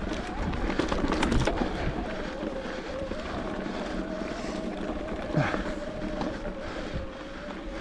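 Electric mountain bike's motor whining at a steady pitch under pedalling, over wind on the microphone and the rush of tyres on the dirt trail, with a short rattle of knocks from the bike about a second in.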